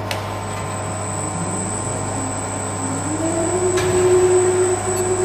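Steady machinery hum from a cheese vat's motor-driven cutting and stirring frames turning through curd and whey. A mid-pitched tone rises slightly about three seconds in and then holds steady.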